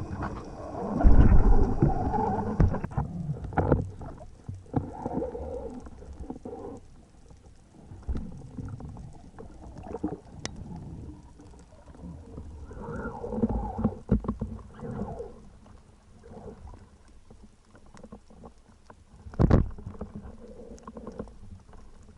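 Muffled underwater sound picked up by a spearfisher's action camera: irregular swells of water noise and movement, broken by scattered sharp knocks, the loudest near the end.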